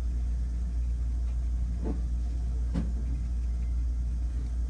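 Steady low rumble, with two faint clicks about two and three seconds in, from handling the phone's battery while its contacts are cleaned.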